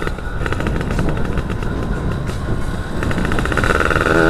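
Yamaha F1ZR's single-cylinder two-stroke engine running under way, a rapid even stream of firing pulses. It gets louder and more strongly pitched near the end as the revs come up.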